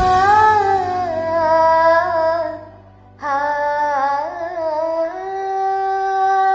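A woman singing a wordless melody: two long held phrases with gentle pitch bends, broken by a short pause about three seconds in.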